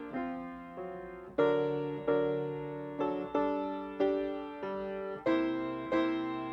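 Piano playing slow, gentle music: notes and chords struck one after another, each left to fade before the next.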